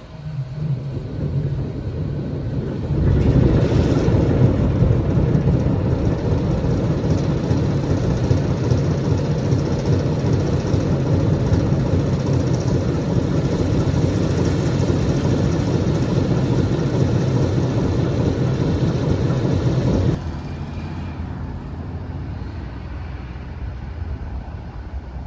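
Diesel switcher locomotive No. 958's engine idling, then running much louder from about three seconds in. It cuts off abruptly about twenty seconds in, leaving a quieter steady rumble.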